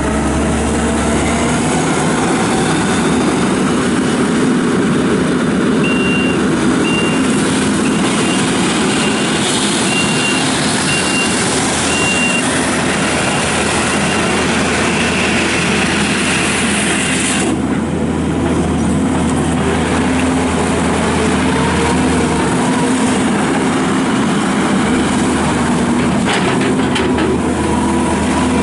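Kubota SVL75-2 track loader's diesel engine running steadily as the machine is driven. Its backup alarm beeps about once a second, six times, while it reverses. About two-thirds of the way through, a high hiss in its running sound drops off suddenly.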